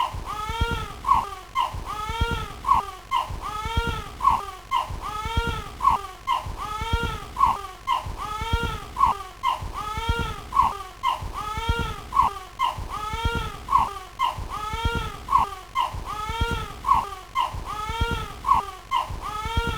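A crying voice, each cry rising and falling in pitch, repeated in a steady, even loop about once a second, with a low thump under each repeat.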